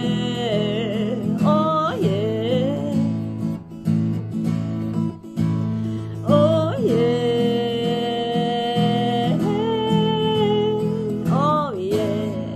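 Acoustic guitar strummed steadily, with a woman's voice singing long held notes that waver and slide in pitch, as in a wordless vocal passage.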